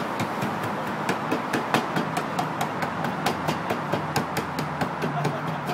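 Cooper's hammer striking the steel hoops of an oak whisky barrel, a fast, even run of metallic blows at about four a second as the hoops are driven tight.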